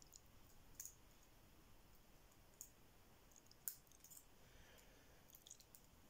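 Faint, scattered metallic clicks of a lock pick working the pins of a cross (cruciform) lock cylinder under a Z tension tool, a handful of small ticks with the loudest a little past halfway.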